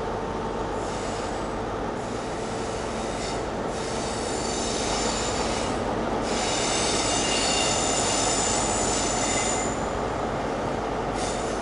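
Steel train wheels squealing against the rails on curved track, over a steady rolling rumble. The squeal comes in several high-pitched spells; the longest and loudest starts about halfway through and lasts several seconds.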